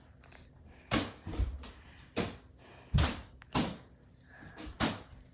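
A yellow balloon being batted back and forth by hand, a sharp slap each time it is hit, about seven hits at uneven intervals, roughly one a second.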